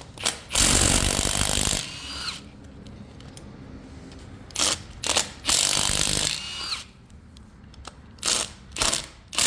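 Cordless 3/8-inch impact wrench run in several bursts, hammering on bolts of the engine's cylinder head to loosen them. A short whine follows two of the bursts as the motor stops.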